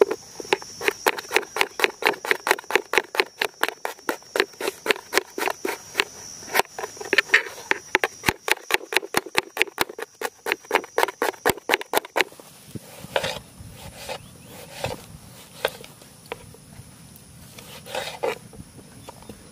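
Knife chopping onions against a metal tray in quick, even strokes, about four or five a second. About twelve seconds in, this gives way to slower, scattered knocks of a knife slicing tomatoes on a wooden board.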